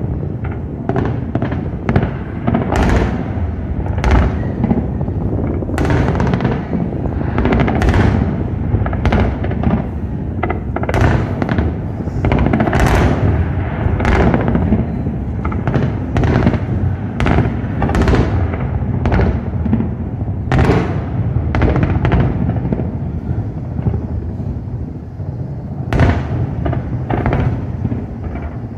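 Aerial fireworks display: a dense, continuous run of sharp bangs, several a second, over a steady low rumble from overlapping bursts.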